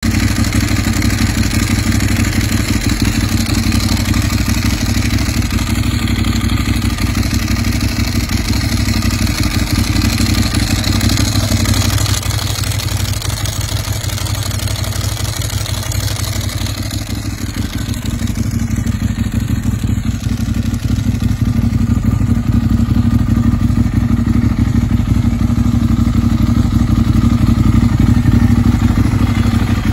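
Ducati 1098's L-twin engine idling with the dry clutch clattering behind its open cover, the rattle typical of a Ducati dry clutch. It runs steadily throughout and grows louder over the last several seconds.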